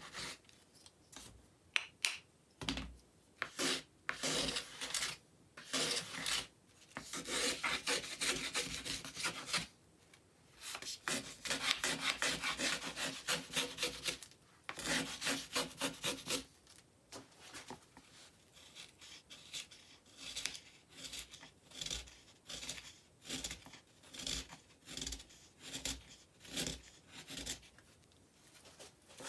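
Small hand plane taking repeated shaving strokes along a wooden guitar brace, cutting it down in height. The strokes come in quick runs through the middle, then slow to about one a second near the end.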